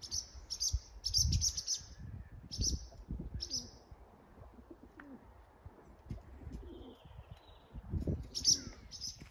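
Barn swallows giving short, high twittering calls several times, with doves cooing low underneath, loudest about a second in and again near the end.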